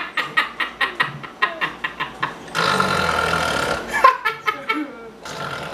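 A man and a woman laughing hard together in rapid, breathy bursts. A bit over two seconds in, one long raspy, wheezing sound lasts about a second before the laughter picks up again.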